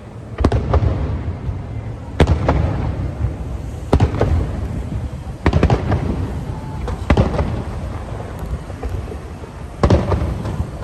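Aerial fireworks bursting: a loud bang every second or two, each trailing off in a rolling rumble, over a continuous low rumble from the display.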